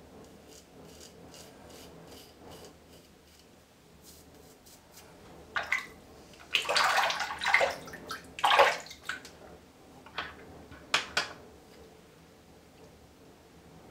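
Mongoose Alumigoose safety razor scraping through lathered stubble in short, faint, quick strokes. About halfway through come several loud bursts of water splashed by hand as the face is rinsed over the basin.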